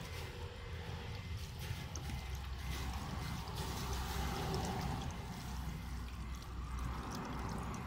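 Water being poured into a Proton Gen2's cooling system to refill it after a thermostat change, spilling and splashing onto the hoses in the engine bay, over a steady low hum.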